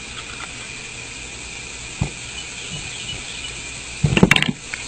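Steady high chirring of insects, with a single knock about two seconds in and a brief loud clatter of knocks and scraping about four seconds in.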